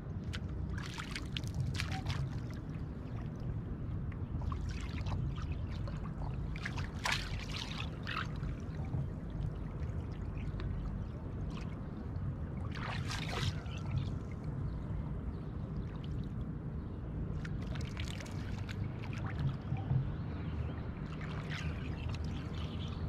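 Water splashing in short bursts, several times, as a hooked musky thrashes at the surface beside a kayak, over a steady low rumble.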